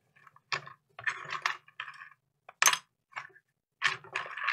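Loose power-adapter tips and parts clicking and clinking against each other as a hand rummages through them in a small cardboard box, looking for the right adapter tip. Irregular rattling clicks, the loudest about two and a half seconds in.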